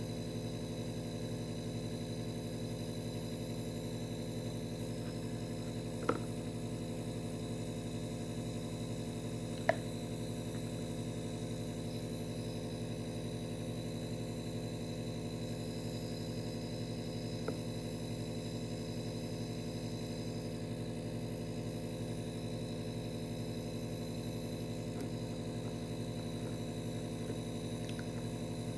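Steady electrical hum made of several even tones, with a few faint clicks about 6, 10 and 17 seconds in.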